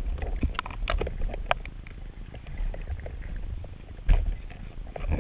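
Underwater ambience heard through a camera's waterproof housing: a low rumble of water movement with scattered short clicks and crackles, and a louder knock about four seconds in.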